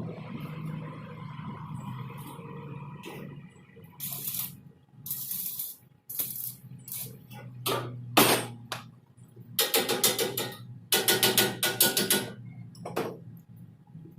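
Arc welding in short tack welds: a string of separate bursts of crackling hiss, some in quick clusters, over a steady low hum.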